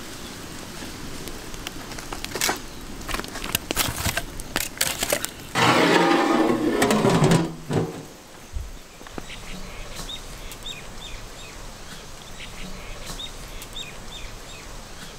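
Wood fire crackling under the cooking pot with scattered sharp pops, then a loud rough noise lasting about two seconds near the middle. In the last few seconds a bird chirps repeatedly.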